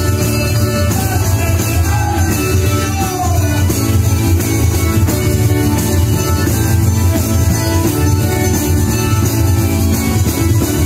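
Live Calabrian folk music: a band of acoustic guitars playing a steady dance tune.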